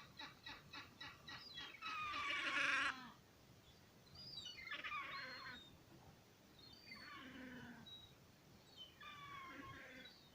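Gulls calling: a run of quick short calls, about four a second, then a loud long call about two seconds in, followed by several shorter bouts of calling.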